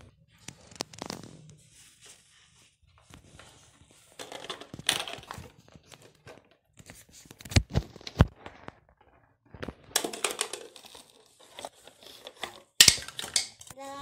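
Handling noise of plastic toys: irregular rustling and scraping, with a few sharp knocks, the two loudest close together about halfway through and another near the end.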